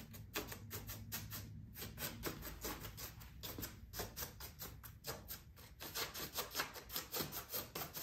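Paintbrush dabbing acrylic paint onto carved foam insulation board in quick light taps, about five a second, with brief pauses.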